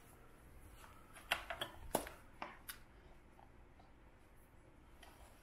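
Light plastic clicks and clacks, a quick cluster of about half a dozen starting about a second in, from the toys on a baby activity jumper's tray being handled.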